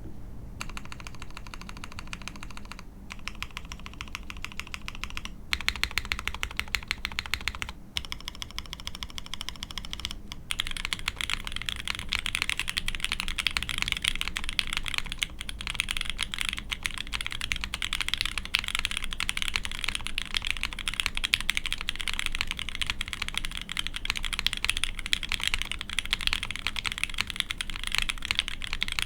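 Typing on a Keycult No. 2/65 mechanical keyboard with a brass case, aluminium plate, Krytox-lubed Sp-Star Meteor White switches and CRP keycaps. Rapid keystrokes come in runs with brief pauses for about the first ten seconds, then turn into continuous fast typing.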